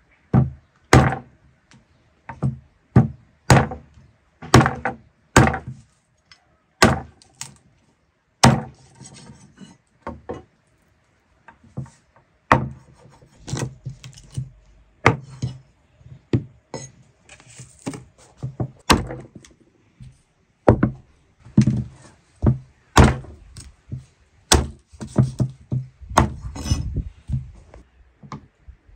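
Cleaver and knife chopping and cutting raw lamb legs on a wooden cutting board: a long run of sharp, irregular knocks, about one a second and sometimes in quick pairs, with the blade scraping in between.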